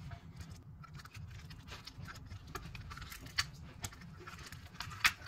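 Knife cutting the leafy crown off a whole pineapple on a cutting board: scattered small crackles and clicks as the blade goes through the tough fibrous top and taps the board, with a sharper knock about five seconds in, over a low steady hum.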